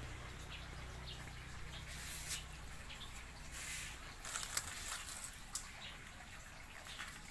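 Faint outdoor background with short high chirps repeating about every half second, and a few brief clicks and rustles, the sharpest about two and a half and four and a half seconds in. A low hum fades out at the start.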